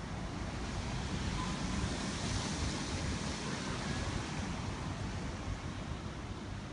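Steady hiss and rumble of distant city traffic and wind coming through an open window, swelling slightly a couple of seconds in.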